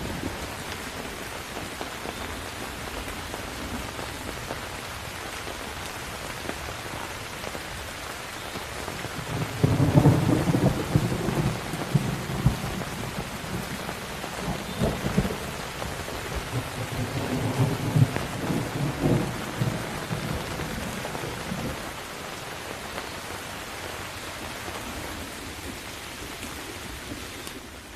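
Steady heavy rain with a thunderstorm: a long rolling rumble of thunder, loudest about ten seconds in, crackles on through the middle and fades out about two-thirds of the way through.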